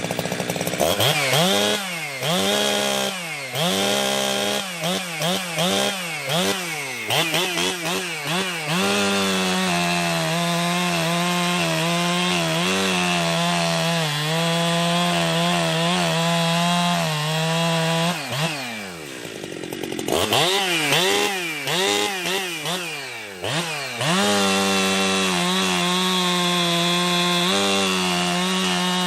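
Ported two-stroke Jonsered 2071/2072 chainsaw with an exhaust mod revved in quick throttle blips, then held at a steady full-throttle pitch while cutting wood. About two-thirds of the way through the revs fall away and it is blipped a few more times before settling into a second steady cut.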